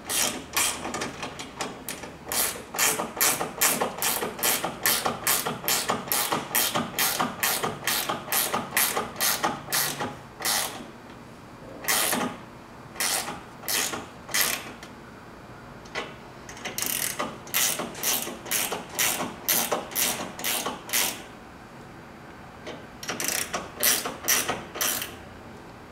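A 9/16 ratcheting wrench clicking in quick runs, about three clicks a second, with a few short pauses. The nuts on the deck's rail clamp bolts are being snugged down evenly.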